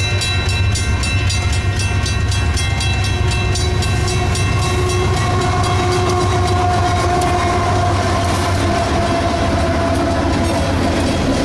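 Train rolling past: a steady low rumble with a quick, even clickety-clack of wheels over rail joints, which fades after the first couple of seconds. A drawn-out tone with a slightly falling pitch comes in about three seconds in and lasts nearly to the end.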